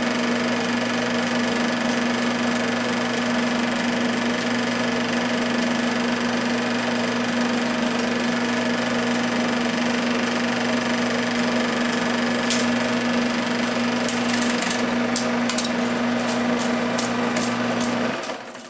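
Film projector running with a steady motor hum and mechanical clatter. In the last few seconds, as the film runs out, a series of sharp clicks sounds, then the projector stops just before the end.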